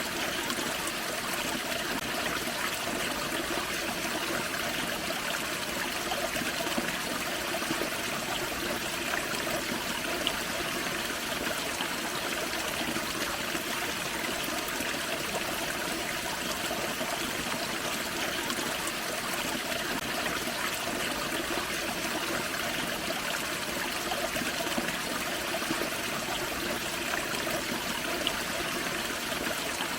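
Small forest creek pouring over a little waterfall: a steady, unbroken rush and trickle of water.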